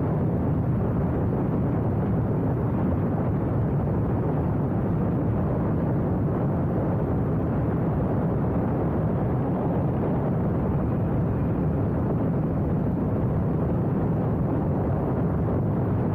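Wind rushing over the microphone of a motorcycle riding at steady speed, a constant noise with the bike's engine and tyre noise mixed in beneath it.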